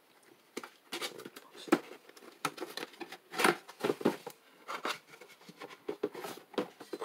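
Cardboard box being opened and a fan and its manual unpacked by hand: irregular rustles, scrapes and knocks of cardboard and packing, beginning about half a second in.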